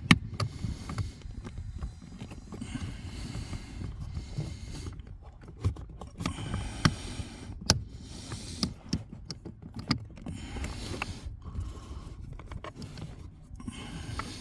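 Scattered sharp plastic clicks and rustling handling noises as a wiring connector is worked onto a car's brake light switch behind the dashboard, a fiddly fit.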